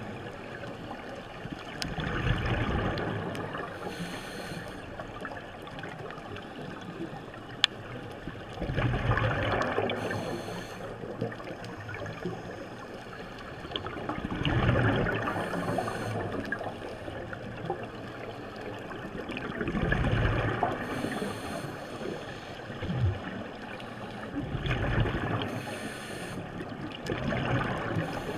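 Underwater breathing of a scuba diver on a regulator: five gurgling rushes of exhaled bubbles, about every five to six seconds, each followed by a short hiss of the regulator, over a steady watery background. One sharp click about eight seconds in.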